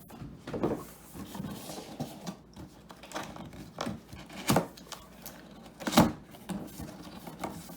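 Cardboard box being opened and handled: rustling and scraping of cardboard and packing, with several sharp knocks, the loudest about four and a half and six seconds in.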